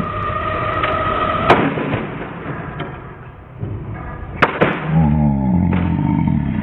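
1/12 scale radio-controlled banger cars racing on a carpet oval, with two sharp crashes against the track barrier, about a second and a half in and again past four seconds.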